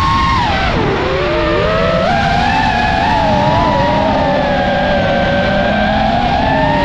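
FPV quadcopter's brushless motors and propellers whining, several close tones together. The pitch dips sharply about a second in, then climbs back and wavers as the throttle changes.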